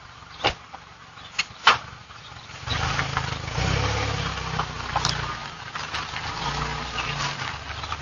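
Three sharp knocks about half a second, one and a half seconds and nearly two seconds in, then a car engine rumbling steadily from about three seconds in as an SUV backs out of its parking spot.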